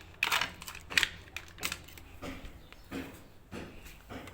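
Hard plastic clicks and scrapes from a top-load washing machine's lint filter as its sieve is prised out and handled with a flat screwdriver, about six sharp clicks spread over a few seconds.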